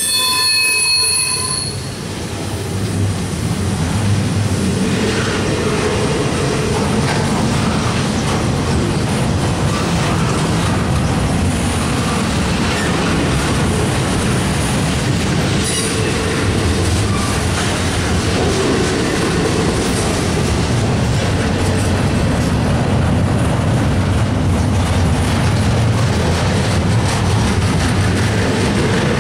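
Double-stack intermodal well cars rolling steadily past, a continuous rumble and clatter of steel wheels on rail with some wheel squeal. A high ringing tone sounds over it for the first couple of seconds.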